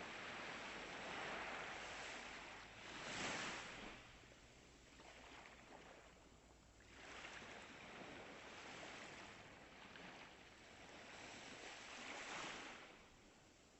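Ocean waves breaking and washing in, the surf noise swelling and fading every few seconds, with the strongest surge about three seconds in and another near the end.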